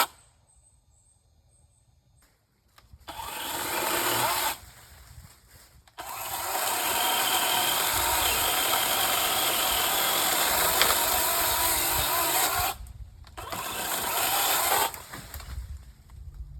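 Cordless 20-volt brushless chainsaw motor and chain running. A short run rises in pitch about three seconds in, a long steady run lasts about seven seconds from six seconds in, and a shorter burst follows near the end.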